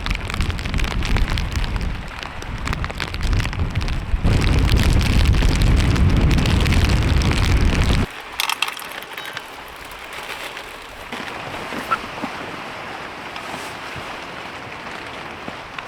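Heavy rain with gusting wind buffeting the microphone, a deep rumble loudest in the middle that cuts off suddenly about halfway through, leaving a steady rain hiss.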